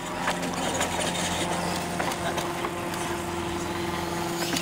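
Radio-controlled monster trucks racing over plastic and plywood ramps, with scattered sharp clacks of wheels hitting the ramps and landing. A steady engine-like hum runs underneath.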